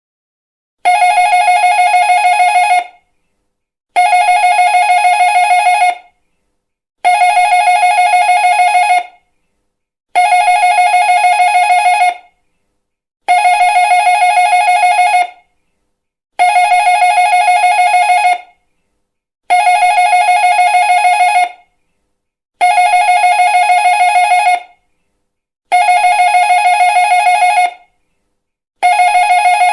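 Electric doorbell ringing over and over: each ring is a fast trilling buzz of about two seconds on one high pitch, repeated about every three seconds, nine times with a tenth starting near the end.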